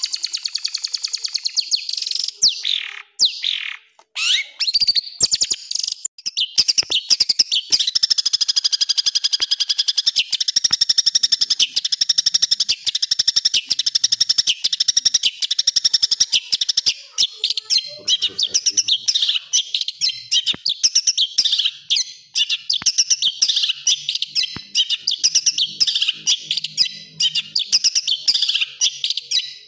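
Long-tailed shrike singing a harsh, fast song. A few downward-sweeping calls in the first few seconds give way to a long, rapid chatter of short repeated notes.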